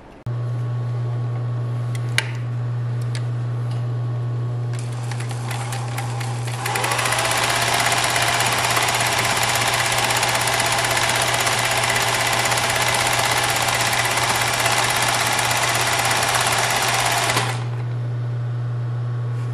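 Singer 20U33 industrial zigzag sewing machine: its motor hum starts just after the beginning. About seven seconds in, the machine speeds up into fast, steady free-motion zigzag stitching for about ten seconds, then stops. The motor keeps humming after it stops.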